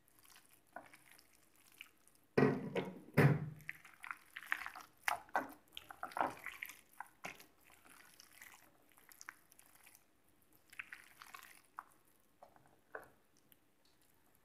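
Wet squelching and squishing of a bare hand kneading chicken pieces in a thick spice marinade in a glass bowl. It comes in irregular strokes, loudest a couple of seconds in, then quieter.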